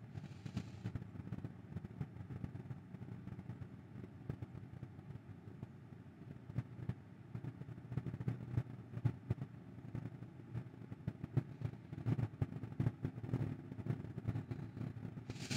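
Faint outdoor background: a low, steady rumble with scattered light ticks and crackles, a little louder in the second half.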